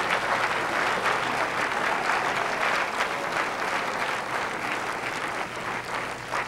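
Audience applauding, a dense patter of many hands clapping that slowly thins out toward the end.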